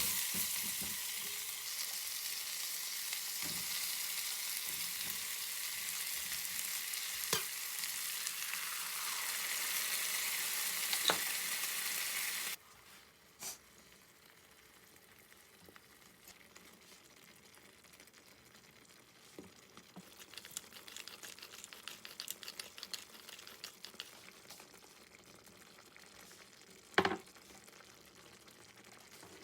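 Food sizzling and frying in a hot pan, with a few knocks of a utensil stirring it. The sizzle cuts off abruptly about halfway through, leaving a quiet stretch with light clicks and one sharp knock near the end.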